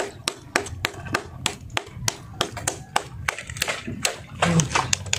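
A metal bar striking and chipping at oyster shells on an oyster-encrusted post: sharp clicking taps, about three or four a second, with a louder, duller knock about four and a half seconds in.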